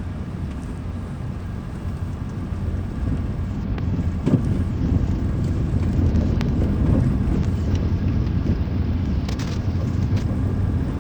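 A moving vehicle's steady low rumble of engine and road noise, with a few sharp knocks or bumps along the way.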